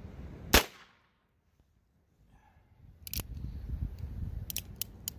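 A single gunshot from a .22 LR revolver firing a Federal #12 shotshell, about half a second in. A short silence follows, then a few sharp clicks near the end.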